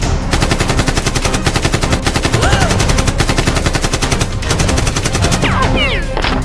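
Rapid automatic gunfire, a continuous burst of machine-gun shots, with a few short whistling pitch sweeps over it near the end.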